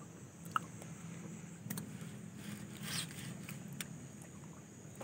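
Faint outdoor ambience: a steady high-pitched hum over a low hum, with a few scattered sharp clicks and a brief rustle about three seconds in.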